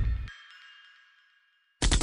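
Electronic dance music in a dubstep style: a heavy bass hit cuts off just after the start and leaves a high ringing tail that fades to silence. New music comes in abruptly near the end.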